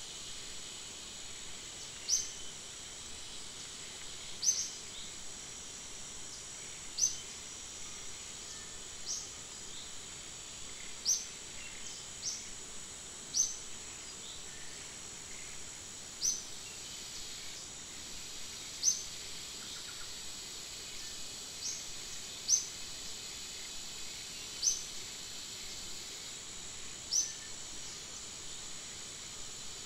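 Natural woodland ambience: a steady high insect drone, with a bird's short, high rising chirp repeated every two to three seconds.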